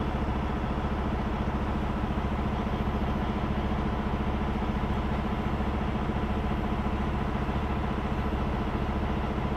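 Heavy semi-truck diesel engine running steadily at low revs, with an even low throb and no revving.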